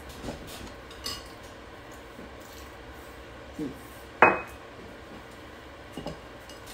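Tableware sounds of a meal: chopsticks and bowls giving a few light clicks and taps, with one sharp, ringing clink about four seconds in.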